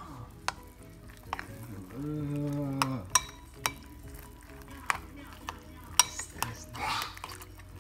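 Metal spoon stirring soggy cereal and liquid in a ceramic bowl, with repeated sharp clinks of the spoon against the bowl.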